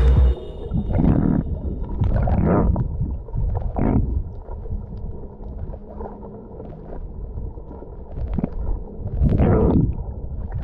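Muffled water sloshing and gurgling around a camera at or under the sea surface while snorkelling, a low rumble with several irregular swells.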